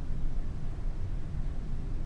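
Apartment interior ambience: a steady low rumble with a fainter even hiss above it, with no distinct events.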